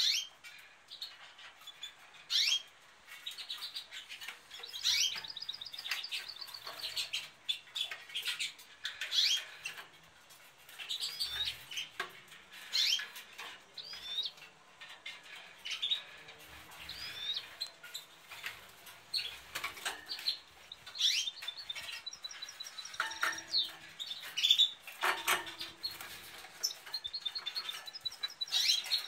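Caged European goldfinches and canaries chirping and calling, a mix of sharp single notes and short trills on and off throughout, with a fast, even twittering trill about two-thirds of the way in.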